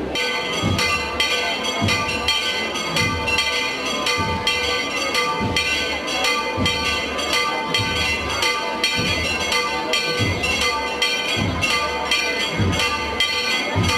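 Church bells pealing: several bells of different pitch struck in quick, irregular succession, their tones ringing on and overlapping, with a deeper stroke roughly once a second.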